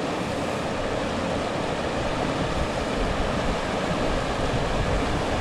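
Snow-fed mountain river running fast over boulders: the steady rushing hiss of white-water rapids close by.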